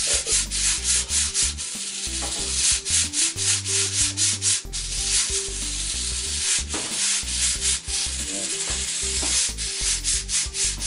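Stovetop pressure cooker hissing steam from its valve in uneven pulses, the sign that it is up to pressure, with low tones shifting underneath.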